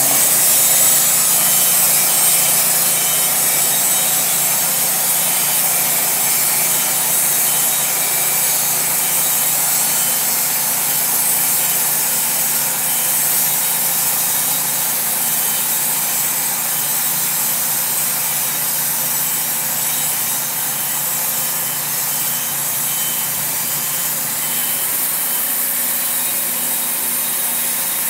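Wood-Mizer LT40 portable band sawmill cutting along a Douglas fir piling: the band blade working through the wood over the mill's engine, steady throughout.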